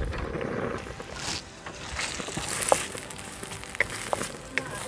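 Wind buffeting the microphone as a low rumble, over sliced onion and carrot frying in oil in a steel wok. A few light taps of a wooden spatula against the wok come in the second half.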